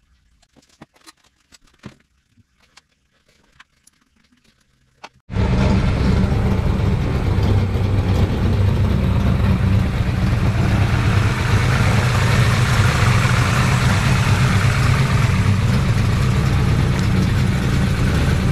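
Faint scattered clicks and taps of hand work on the engine. About five seconds in, a Holden 308 V8 fitted with a hydraulic roller cam and lifters is heard running at a steady idle, loud and even; the owner says it has an exhaust leak on the battery side that is not yet welded.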